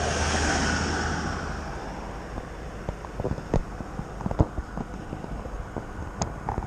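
A passing vehicle's hum and rush, fading away over the first two seconds, then scattered small clicks and knocks.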